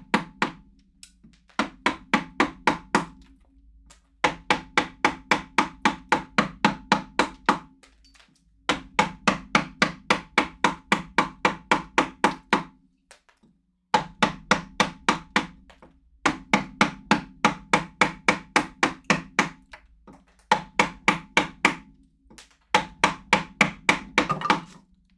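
Chisel being driven into a block of wood by rapid hammer blows, about five strikes a second in runs of a few seconds with short pauses between, a low ringing tone carrying under each run.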